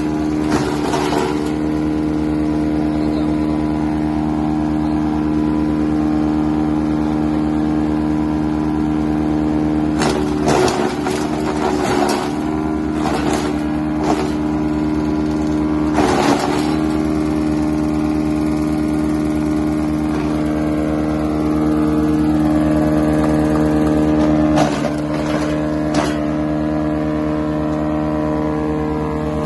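Tractor-mounted wood chipper running at a steady speed, driven by the tractor's engine, with a steady pitched hum. Short harsh noisy bursts break in several times through the middle and again near the end.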